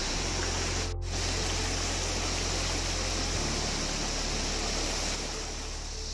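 Steady rush of a shallow, rocky river flowing, broken by a brief dropout about a second in.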